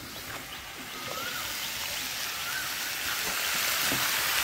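Boiled young jackfruit and potato pieces, coated with salt and turmeric, sizzling as they fry in oil in a metal karahi, a hiss that grows louder from about a second in.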